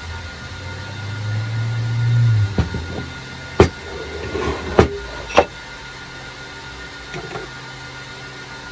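Small Parkside cast-iron bench vise handled on a wooden workbench. A low rumble builds early on as the vise is moved across the bench, then three sharp metal-on-wood knocks come about a second apart in the middle as it is turned over, its T-handle sliding, and set down.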